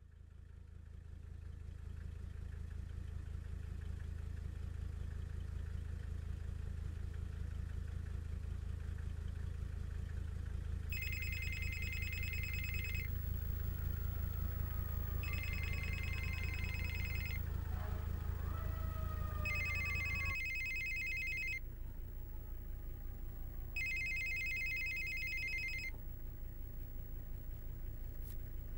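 Steady low rumble of a car driving, heard from inside the cabin, with a telephone ringing four times over it. The rings are electronic, each about two seconds long, starting about eleven seconds in.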